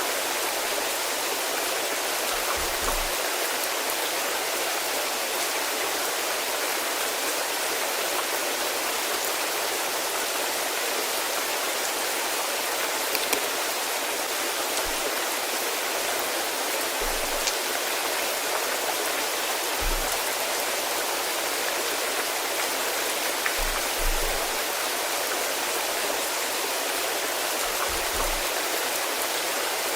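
Steady rain falling, an even, dense hiss, with a few short low thuds now and then.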